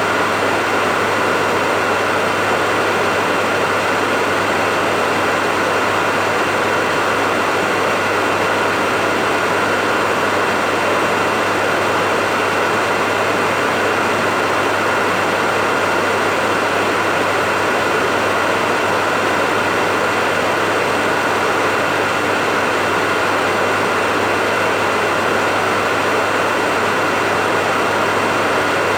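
Electric hair dryer running steadily: an even rush of blown air over a constant motor hum and whine, unchanging throughout.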